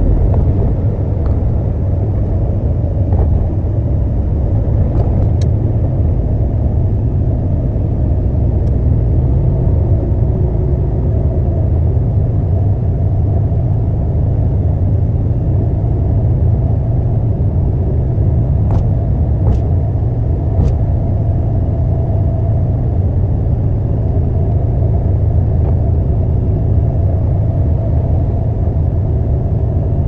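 Concrete mixer truck's diesel engine running steadily: a loud, even, deep rumble with a faint droning tone over it.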